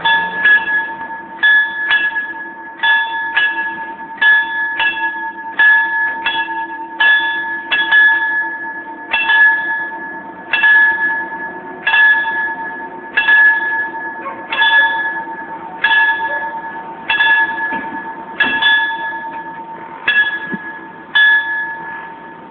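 Italian railway level-crossing bell (FS passaggio a livello) struck over and over, about three strikes every two seconds, each strike ringing on and fading. It warns that the barriers are closing for an approaching train, and it stops near the end once they are down.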